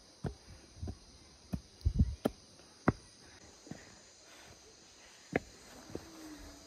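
Irregular footsteps and knocks of a handheld phone rubbing against clothing, loudest around two to three seconds in and once more near five seconds, over a steady high-pitched insect drone of crickets or cicadas.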